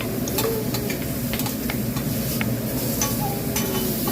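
Metal spatulas clicking and scraping on a hibachi flat-top griddle: irregular sharp taps over the steady sizzle of food cooking.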